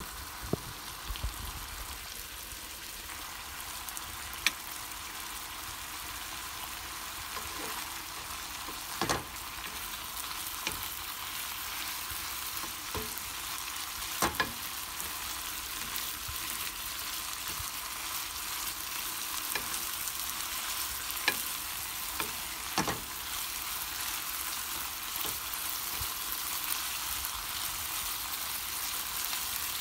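Diced chicken breast sizzling in coconut oil in a nonstick frying pan, a steady frying hiss. A wooden spatula stirs the pieces, knocking against the pan now and then with sharp clicks.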